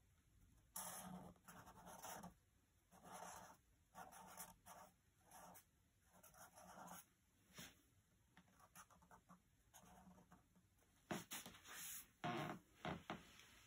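Faint scratching of two pens on notebook paper, written with both hands at once in short strokes. Near the end come a few louder clicks and rustles.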